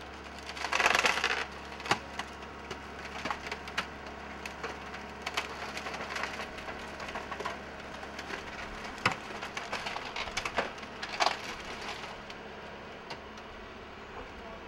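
Wooden demolition debris splintering and cracking as an excavator crushes it: a loud crunch about a second in, then scattered cracks and snaps, the sharpest ones about nine and eleven seconds in, over a steady low hum.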